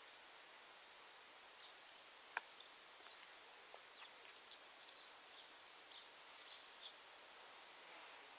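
Near silence with faint bird chirps, short high downward notes scattered through it, and a single sharp click about two and a half seconds in.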